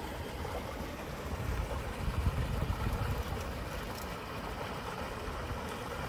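Steady outdoor rushing noise with a low, uneven rumble of wind on the microphone, which swells briefly about one and a half seconds in.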